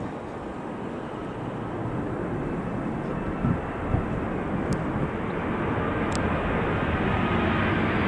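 Jet airliner on approach, its engine noise growing steadily louder as it comes closer, with a few brief low thumps around the middle.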